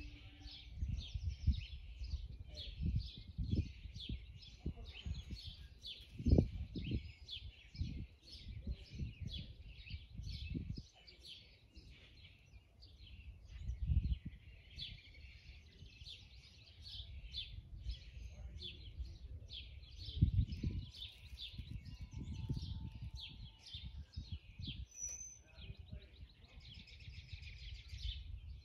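Small birds chirping continually, many short high calls overlapping, with low rumbling gusts of wind on the microphone coming and going.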